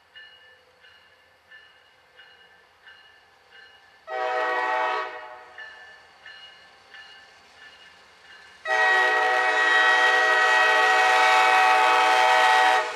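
Air horn of a CSX SD40-3 locomotive leading a freight, sounded for a grade crossing: a short blast about four seconds in, then a long, loud blast from about nine seconds until just before the end. Crossing bells ring faintly about one and a half times a second underneath.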